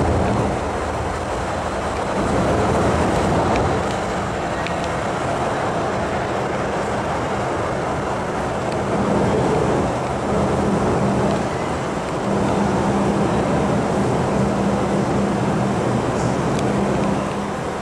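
First-generation MTR M-Train (Metro-Cammell electric multiple unit) running through an underground station without stopping: a steady rumble of wheels and traction motors. A steady hum joins the rumble in the second half.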